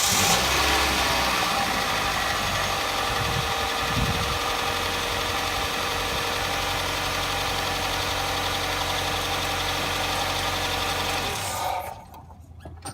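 2009 Hyundai Elantra's four-cylinder engine idling steadily just after being started with fresh spark plugs, then switched off about twelve seconds in.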